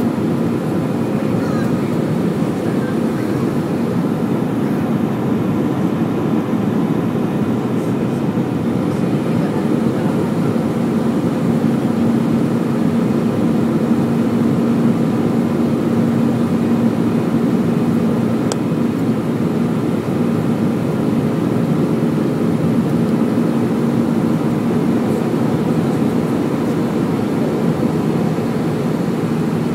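Steady cabin noise of an Airbus A320 in flight, heard inside the cabin at a window seat beside the wing engine: the jet engine and airflow make a loud, even rumble with a low hum that grows stronger through the middle.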